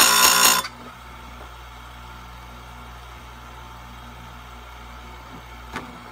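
Power Fist bench-mounted chainsaw-chain grinder: the spinning abrasive wheel grinds a cutter tooth with a harsh, high screech that stops a little over half a second in. The motor then runs on with a steady low hum while the wheel is lifted clear.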